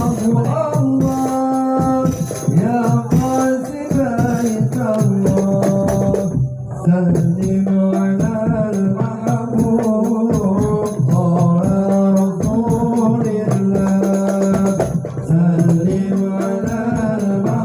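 Sholawat, an Arabic Islamic devotional song, sung by a voice over instrumental backing with rhythmic percussion, with a brief break about six and a half seconds in.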